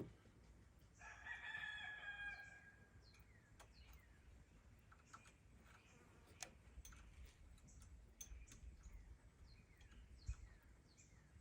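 A rooster crowing once, faint, about a second in. Short high bird chirps and a few faint clicks follow.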